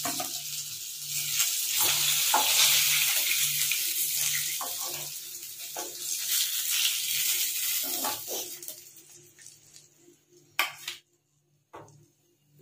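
Hot oil sizzling in a kadai as fried fish pieces are lifted out with a wooden spatula, with scattered short knocks of the spatula against the pan and plate. The sizzling fades away after about nine seconds, leaving a couple of faint clicks.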